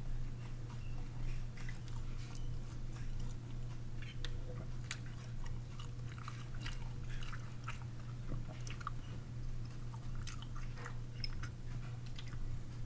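A person chewing a mouthful of a meatball sub, with irregular small wet clicks and crackles of the mouth, over a steady low hum.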